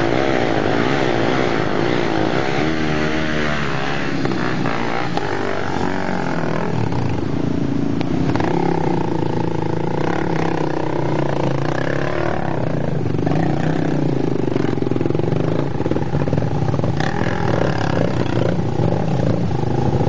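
Dirt-bike engines revving up and down in the first few seconds, then running more steadily as the bikes ride on.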